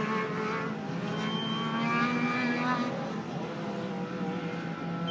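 Off-road race vehicle engines running, several at once, their pitches shifting as they rev and ease off.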